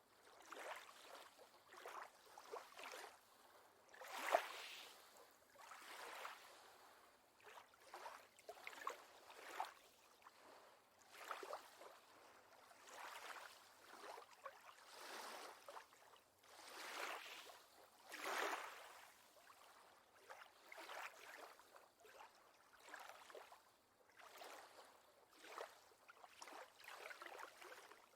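Lake water lapping softly in small, irregular surges a second or two apart, with a few sharper splashes.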